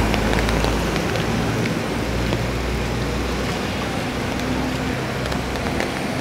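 Steady rain on wet ground, with scattered ticks of drops; a passing vehicle's low rumble fades out about a second in.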